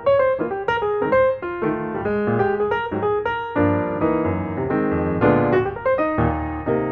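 Background piano music: a gentle melody of single notes over soft chords, moving along at an even pace.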